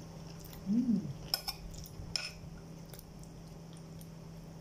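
Metal cutlery clinking a few times against a plate. About a second in comes a brief hummed "mm" from the person eating, which is the loudest sound.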